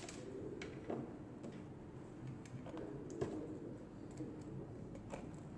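Irregular light clicks and small knocks of a camera bracket being screwed onto a wall, a few sharper ticks about a second in, around three seconds in and near the end.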